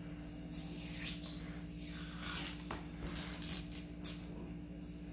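Long knife cutting along the edge of a large olive flounder on a plastic cutting board: several scraping, tearing strokes through skin and flesh, over a steady low hum.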